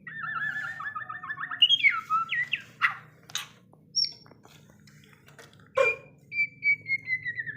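Young white-rumped shama (murai batu) singing: a fast trilled phrase, then varied short whistles broken by a few sharp clicks, and a long falling whistle near the end.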